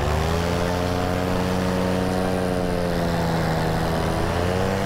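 Paramotor engine and propeller running under the pilot's throttle: the pitch rises right at the start, eases down slowly, then rises again near the end.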